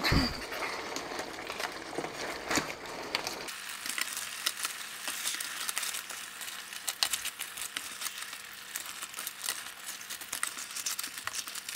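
Coconut curry sauce sizzling and crackling in a stainless steel pan while blue crab pieces are stirred from the bottom up with a wooden spatula, with many small knocks and scrapes of shell and spatula against the pan.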